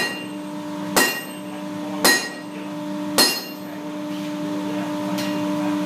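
A sledgehammer strikes red-hot iron on a blacksmith's anvil in three heavy blows about a second apart, each with a short metallic ring, then the blows stop. A steady hum runs underneath.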